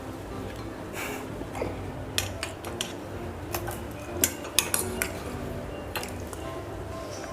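Metal spoons clinking and tapping against plates and bowls as rasgullas are scooped up with a spoon held in the mouth: a dozen or so irregular clinks, most of them bunched around two to five seconds in.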